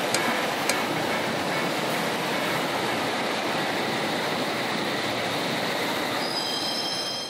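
London Underground train running along the platform with a steady rushing rumble; a high-pitched squeal of several steady tones comes in near the end.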